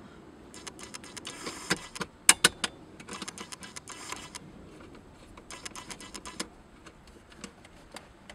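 Quick clicks and light rattles of hands and a screwdriver working screws into the plastic dash trim around a newly fitted head unit. They come in three busy bursts over the first six seconds, then a few scattered clicks.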